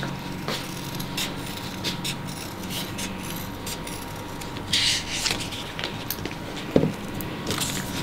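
Scissors snipping and athletic tape being handled: small clicks and rubbing scrapes, a short ripping hiss of tape or backing paper peeling about five seconds in, and a sharp knock near seven seconds.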